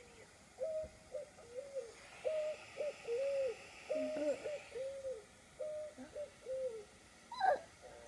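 Picazuro pigeons cooing through a laptop's speaker: a run of about a dozen short, low coos in even phrases. A child's short voice cuts in near the end and is the loudest sound.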